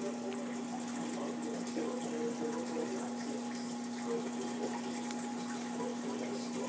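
Saltwater aquarium's circulation running: steady water flow with a constant electrical hum from the pump.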